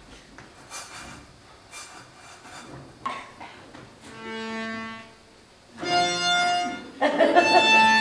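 A few faint clicks, a knock about three seconds in, then three long held musical notes, each higher than the last, the third the loudest.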